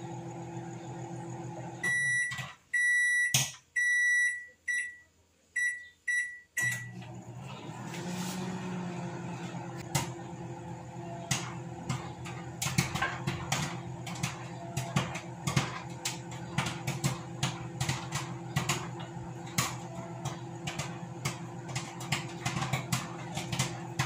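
Microwave oven running with a steady hum while popcorn pops inside it; the pops become frequent from about halfway on. About two seconds in, the hum breaks off for a run of about seven short high electronic beeps, then it starts running again.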